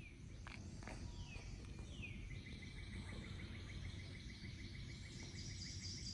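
Bird calling in wooded swamp: several short downward-sliding whistles, then a rapid, even trill from about two seconds in. A steady low rumble runs underneath.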